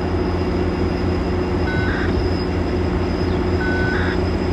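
GO Transit MPI MP40PH-3C diesel locomotive standing with its engine running, a steady low drone. Two short high chirps come about two seconds apart.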